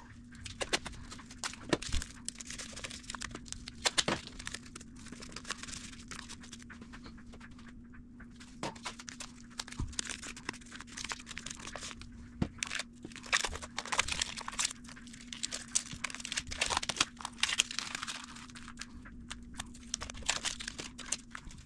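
Blue painter's tape being pulled off the roll in repeated strips, torn and pressed down by hand, with scattered small clicks between the pulls.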